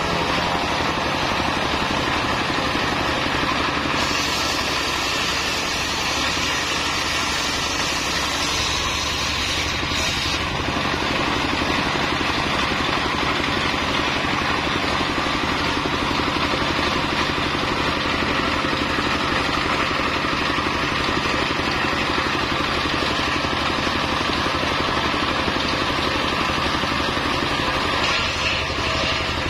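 Stationary single-cylinder diesel engine running steadily, driving a truck-mounted circular saw as a mahogany beam is ripped lengthwise through the blade. The cutting noise turns sharper and hissier from about 4 to 10 seconds in.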